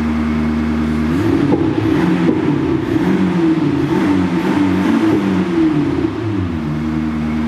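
Thor active-sound exhaust speaker playing its synthetic Ferrari 488 GTB engine sound: a steady idle, then from about a second in several revs rising and falling for about five seconds, and back to idle near the end. Loud, about 88 dB at its peak on a sound meter.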